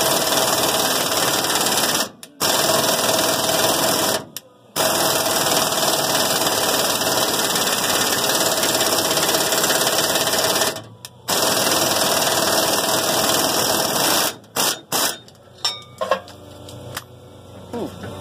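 Pneumatic impact wrench hammering on a rusted fuel-tank strap bolt. It runs in long bursts, cut by short pauses about 2, 4½ and 11 seconds in, then gives a few quick blips near the end before it stops.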